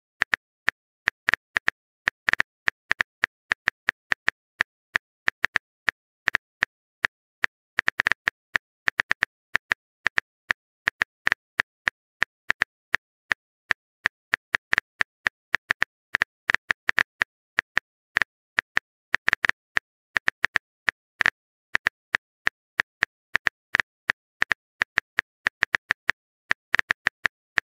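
Phone on-screen keyboard typing clicks from a texting-story app as a message is typed out: quick, uneven taps, several a second, broken by short pauses.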